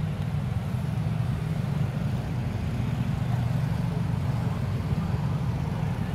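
Steady low rumble of outdoor background noise, without distinct events.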